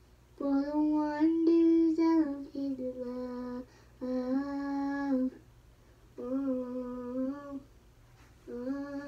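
A young girl singing a wordless tune in long held notes, about five short phrases with brief pauses between them.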